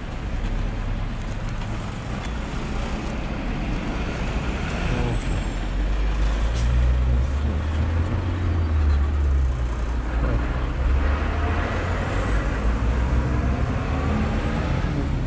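Road traffic running: a heavy vehicle's engine rumbling, swelling about six seconds in and easing off again, with a faint rising whistle near the end.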